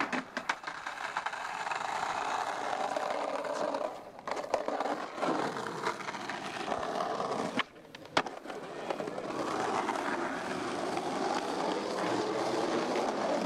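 Skateboard wheels rolling over rough asphalt in a steady rumble, in three long stretches. Between them come a few sharp clacks of the board, the loudest about eight seconds in.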